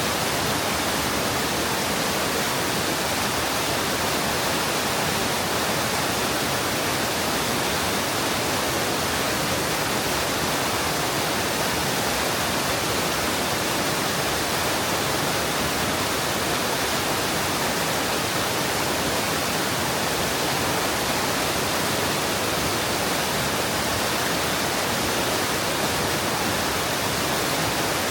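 Mountain stream water rushing and cascading into a rock pool, a steady, even rush with no breaks.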